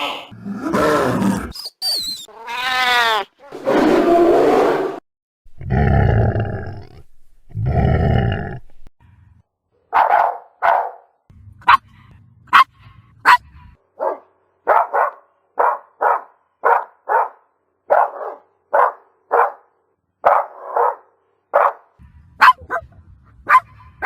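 A Shiba Inu barking: a run of short, sharp barks, about one or two a second, beginning about ten seconds in. Before that come several long, drawn-out sounds, one swooping up and down in pitch.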